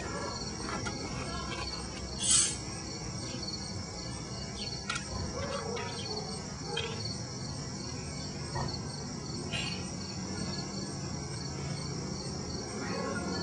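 Crickets chirping, a steady pulsing high trill, with a few faint clicks and a brief louder rustle about two seconds in.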